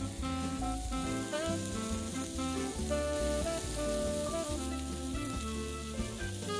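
Light bossa nova background music with a steady run of changing notes, over the hiss of chicken sizzling on a hot grill.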